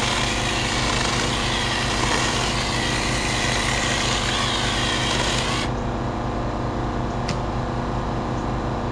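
Taranzy 6-inch cordless electric mini chainsaw running and cutting through a branch, a high whirring whine that cuts off suddenly about five and a half seconds in, followed by a single click. A steady low engine drone runs underneath throughout.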